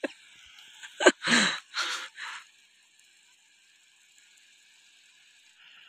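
Faint steady hiss from a pan of curry cooking on a portable butane gas stove, with a few short breathy or rustling bursts about a second in.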